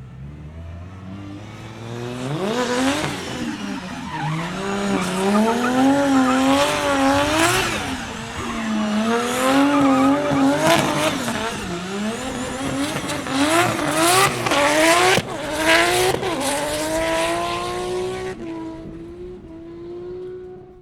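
Muscle car doing donuts: the engine revs up from idle about two seconds in and then swings up and down while the tyres squeal and burn, with repeated sharp bursts of tyre noise. Near the end the tyre noise stops and the engine holds a steady rev, then cuts off suddenly.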